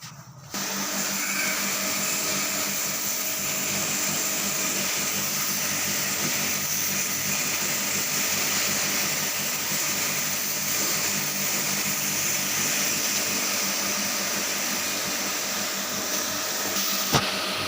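A small electric motor-driven machine running steadily with a strong hiss, starting abruptly about half a second in, with a single sharp click near the end.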